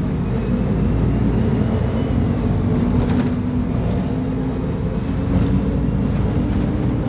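Diesel engine of a Mercedes-Benz O500UDA bi-articulated bus running steadily under way, a low drone with a few held tones over road and drivetrain rumble.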